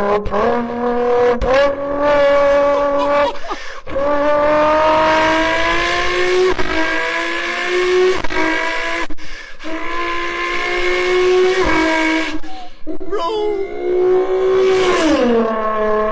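Beatboxer's vocal imitation of a Nissan GT-R R35 engine. It starts from an idle hum and revs up through the gears, the pitch climbing in each gear and dropping sharply at about five shifts, then falls back to a steady idle hum near the end.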